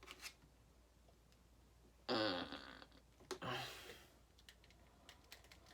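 Two short wordless vocal sounds, like a grunt or hum, about two seconds and three and a half seconds in, with a few faint light clicks between quiet stretches.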